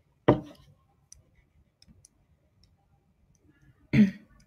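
Faint clicks of a stylus on a pen tablet during handwriting, between two short, sharp louder sounds, one just after the start and one about four seconds in.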